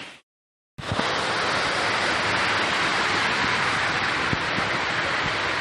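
Steady, loud rush of falling water. It cuts out completely for about half a second near the start, then resumes.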